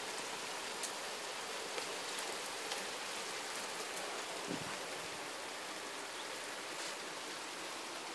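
Steady rain: an even hiss with scattered single drops ticking close by.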